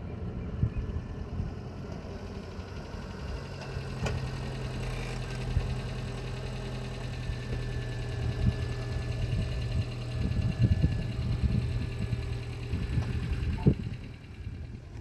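An engine running steadily with a low hum, with irregular rattles and knocks over it and a sharper knock near the end.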